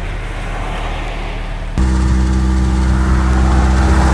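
1997 Honda CR-V engine running at a steady idle, back to running after water was cleared from its cylinders. About two seconds in the sound jumps abruptly louder, to a stronger steady low hum.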